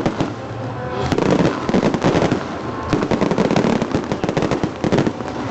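Fireworks going off in a dense, continuous run of sharp crackling bangs, many a second.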